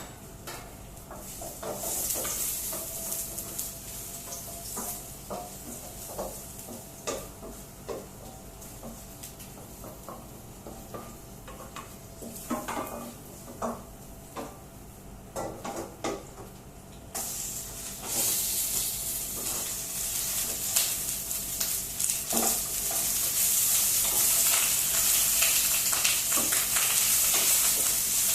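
Food sizzling in a hot pan, with a spoon stirring and scraping in it now and then. The sizzle jumps suddenly louder about two-thirds of the way through and stays loud.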